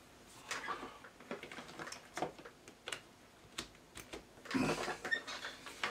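Scattered small clicks and knocks of tools and parts being handled on a workbench, with a short rustle of handling about three-quarters of the way through.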